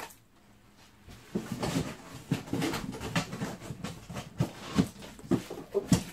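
Irregular knocks, clicks and rustling as plastic vacuum parts and their packaging are handled. It starts about a second in and keeps on with several sharper knocks near the end.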